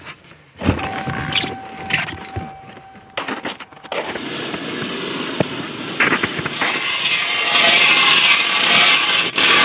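A run of short clips: clicks and a steady thin tone around a car key turned in the ignition, then boots crunching in snow, then, loudest, from about two-thirds of the way in, an ice auger's spiral blade cutting down through pond ice and churning up slush.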